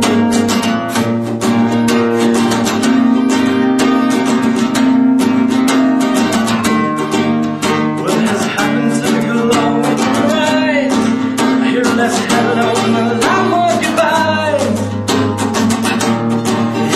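A cheap guitar with four-year-old strings strummed in steady chords, with a man singing over it from about halfway through for several seconds.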